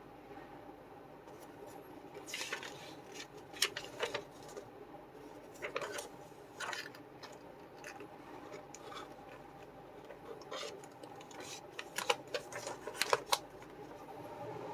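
Plastic model-kit runners and parts being handled, giving scattered sharp clicks and short rustling scrapes over a steady low hum.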